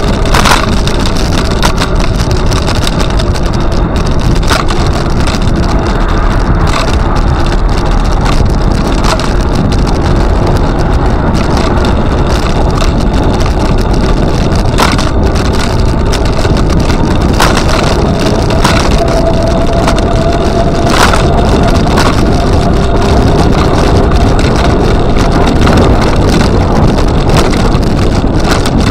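Steady wind buffeting and rolling rumble from riding along a paved trail, with scattered sharp knocks from bumps in the surface. A faint whine comes and goes.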